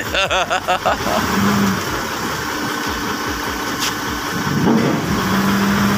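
Diesel engine idling steadily, a low even hum.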